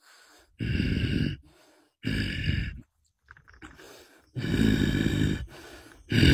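A man's rough, breathy voice in four short bursts about a second apart, like heavy grunting exhalations with no clear words.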